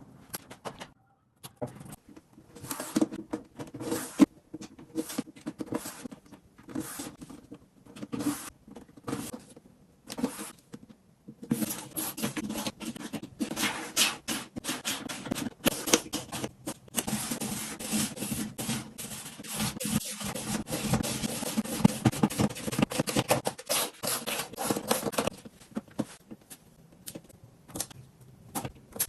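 Items and storage organizers being handled while a mirror cabinet is sorted: scattered clicks, taps and knocks, then a long stretch of steady rubbing and scraping in the middle, thinning back to occasional clicks near the end.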